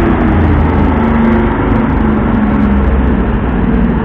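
Heavy vehicle engine running steadily with a low, even note.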